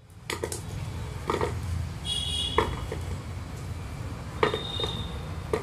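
Raw potatoes dropped one at a time into an aluminium pressure cooker, each landing with a short knock, about six in all, over a steady low hum.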